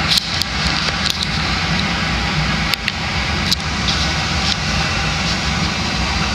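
Casablanca Lanai ceiling fan running, a steady rush of air from its short blades over a low motor hum, with a few sharp clicks.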